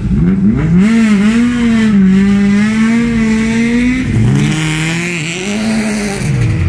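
Ford Escort Mk2 race car's engine revving up sharply as it pulls away, its note rising and wavering with the throttle. About four seconds in, a second race car, a VW Corrado, rolls up with a lower engine note that rises and falls.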